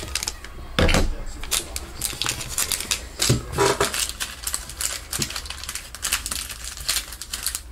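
Irregular clicks and taps with some crinkling, the sound of things being handled on a desk, with a louder knock about a second in and another cluster just before halfway.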